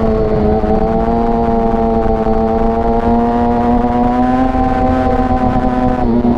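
Yamaha R6 inline-four sport-bike engine held at high revs under load, its pitch climbing slowly, with a slight dip near the end. Wind rushes in the background.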